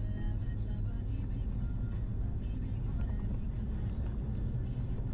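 Steady low rumble of a car's engine and tyres heard inside the cabin while driving along a road, with a few faint ticks.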